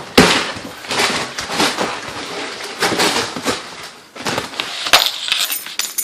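A parcel's packaging being handled and torn open: irregular crackling, scraping and rustling, with a few sharp clicks near the end.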